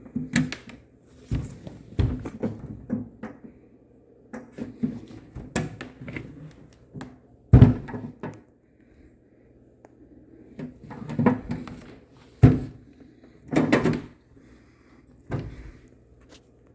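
Seven-drawer machinist's tool box being handled, its drawers opened and shut: a run of sliding, rattling and knocking. The sharpest knocks come about halfway through and again about three quarters of the way through.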